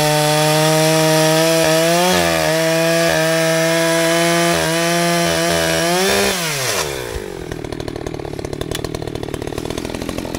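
Echo CS-620PW two-stroke chainsaw at full throttle cutting through a tree stump, its note dipping briefly under load. About six seconds in, the throttle is released and the engine winds down to a rapid idle.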